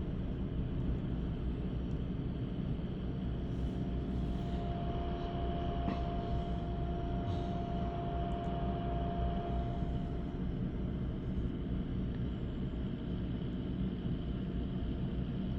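Steady low rumble of a nearby drilling rig at work, with a faint steady whine over it for several seconds in the middle and one faint click.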